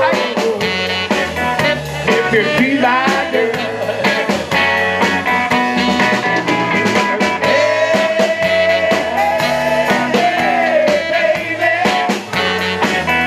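Live rock-and-roll band playing an instrumental break: drum kit keeping a steady beat under bass and electric guitar, with a lead line of long held notes that bend in pitch.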